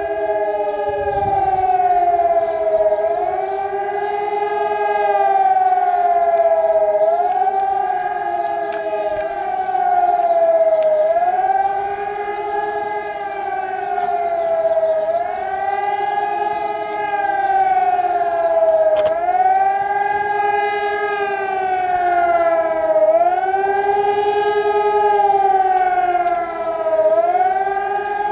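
Civil-defence warning siren sounding a test alarm: two tones sound together and wail, the pitch swelling up and falling back about every two seconds.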